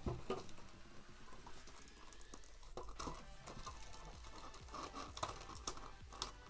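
A clear plastic box insert being handled and shifted over a wooden table: scattered knocks, taps and scrapes of plastic, with a sharp knock right at the start.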